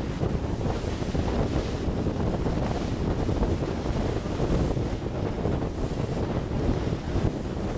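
Wind buffeting the microphone of a camera aboard a ship under way: a steady, low, gusting noise with no pauses.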